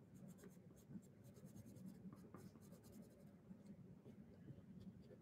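Faint scratching of a graphite pencil on paper in quick, short, repeated strokes, hatching in dark grass texture.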